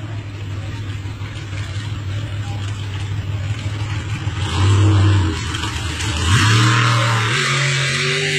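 Racing boat's engine running and building louder, rising in pitch about six seconds in as it revs up.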